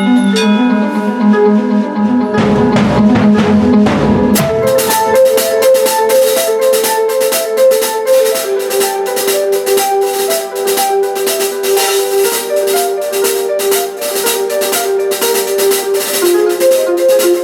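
Drum kit with many cymbals played in a jam over a stepping pitched melody line. A dense roll with crashes comes about two seconds in, and a quick steady beat follows from about four seconds in.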